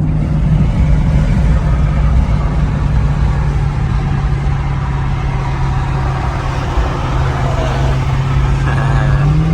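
Jeep Grand Cherokee Trackhawk's supercharged V8 running hard at speed, with heavy road rumble. The engine drone holds steady, sags a little, then rises near the end.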